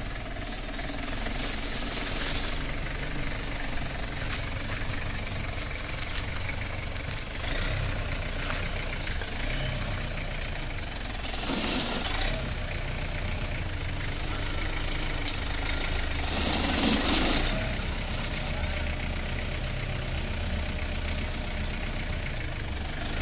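Two Kubota farm tractors' diesel engines running under load as the tractors pull against each other in a tug-of-war, with a knocking diesel clatter. Three short, louder bursts of hiss rise over the engines, about two seconds in, near the middle and a few seconds later.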